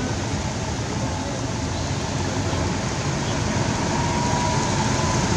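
Steady road traffic noise with a motorbike engine coming closer, growing slowly louder.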